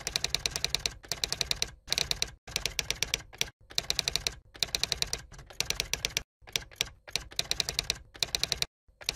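Rapid typing clicks, like a keyboard or typewriter sound effect, in quick runs of about ten clicks a second broken by short pauses.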